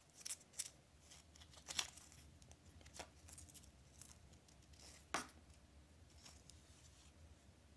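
Faint handling of a black nylon NATO watch strap with matte stainless steel fittings being unbuckled and pulled off a wrist: soft rustles of the woven strap sliding through its buckle and keepers, with a few light clicks, the sharpest about five seconds in.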